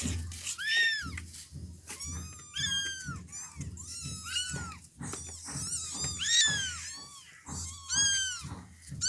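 Young kittens mewing over and over, high-pitched calls that each rise and fall. The calls come about once or twice a second, and at times two voices at different pitches overlap.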